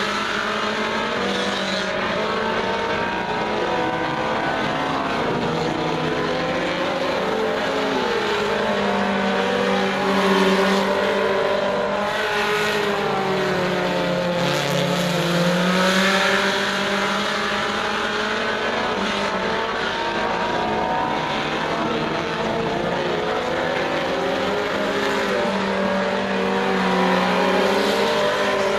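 A pack of Super Stock four-cylinder race cars running laps on a dirt oval, several engines overlapping as they rise and fall in pitch through the turns. The sound swells louder as cars pass close, about ten and sixteen seconds in.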